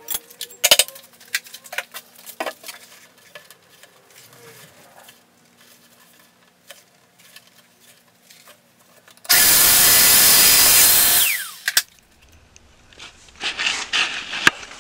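Festool Domino joiner switched on about nine seconds in, plunging a mortise into the MDF cabinet panel for about two seconds, its high whine falling away as the motor stops. Before it come scattered knocks and clicks of tools being handled, and near the end rustling and knocks.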